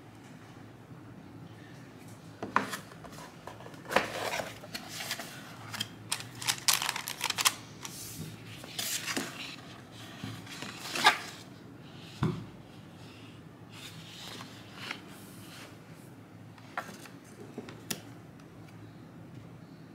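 Hands handling paper sticker sheets and a cardboard mailer box: irregular rustles, taps and small clicks, busiest in the first half and sparser toward the end.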